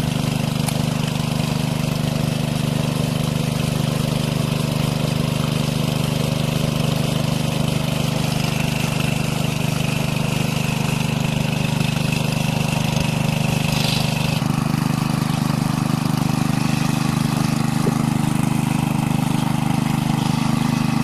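Small engine-driven water pump running steadily at a constant speed, pumping water out of the pond through its hose. Its tone changes slightly about two-thirds of the way through.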